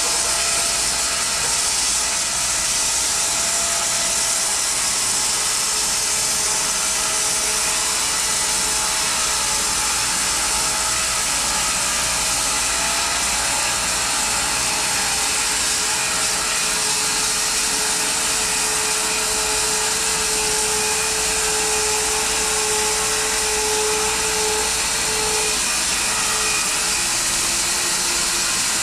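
Home-built bandsaw mill cutting through a weathered maple log on its first cut, a steady even hiss of the blade in the wood, with a faint whining tone that rises for a few seconds near the end.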